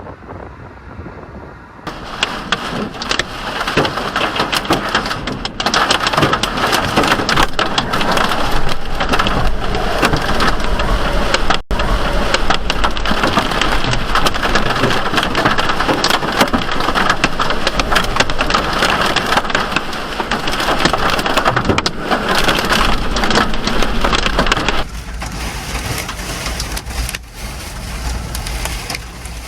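Heavy rain and hail pelting down, a dense patter of many small impacts with a low rumble under it. It comes on suddenly about two seconds in and eases noticeably near the end.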